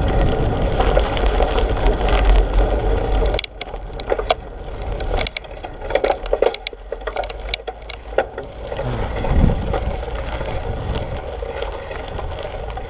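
Mountain bike riding up a gravel road with a low wind rumble on the microphone, which drops away abruptly about three and a half seconds in. Then tyres crunch over gravel, with scattered clicks and rattles from the bike.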